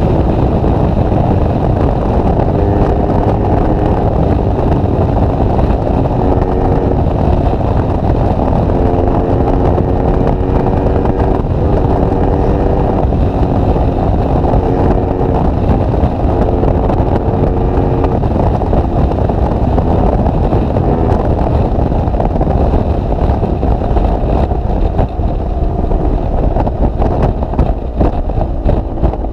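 BMW R1200GS Adventure's boxer-twin engine running through an SC Project GP aftermarket exhaust at steady expressway cruising speed. Its exhaust note holds a near-constant pitch and fades in and out under heavy wind rush on the microphone.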